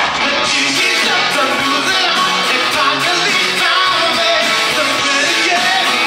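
Live rock music from a stage show band, with singing over guitar and keyboards, playing loudly and steadily.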